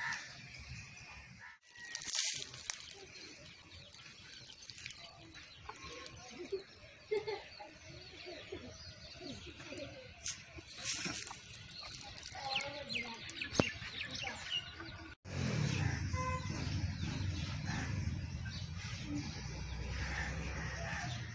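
Outdoor ambience with birds calling now and then in short, scattered calls. After a cut in the last several seconds, a low steady rumble takes over.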